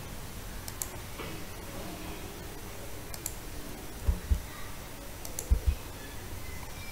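Computer mouse clicking: a few light, sharp clicks spread through, and a little past the middle two pairs of dull low knocks, the loudest sounds. A steady low hum and hiss runs underneath.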